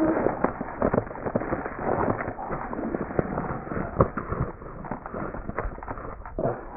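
Handling noise: irregular crackles and scattered small knocks, with one sharper knock about four seconds in.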